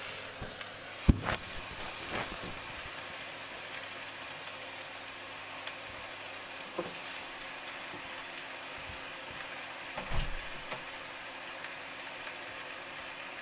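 Cabbage and minced beef frying in olive oil in a pan, a steady sizzle. A sharp knock about a second in is the loudest sound, with a few softer clatters, a small cluster of them around ten seconds in.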